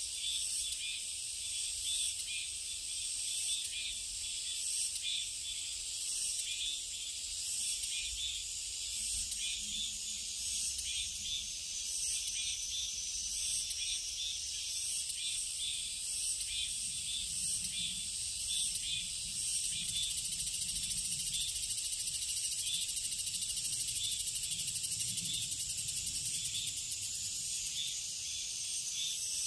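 Cicadas calling in a high-pitched chorus. The song swells in pulses about every second and a half, then from about twenty seconds in becomes a steady buzz that eases off near the end.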